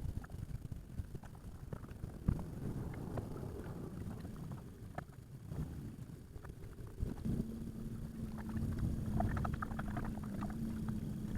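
Wind buffeting the microphone on a small fishing boat, with water slapping and light knocks against the hull. A steady low hum starts about seven seconds in.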